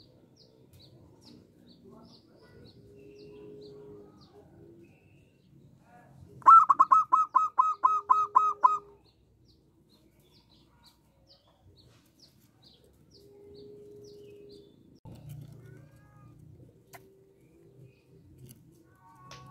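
Zebra dove (perkutut) calling: a quick run of about eleven loud, clipped notes over a little more than two seconds, about six seconds in. Around it are softer, drawn-out low coos and faint, high, repeated chirps.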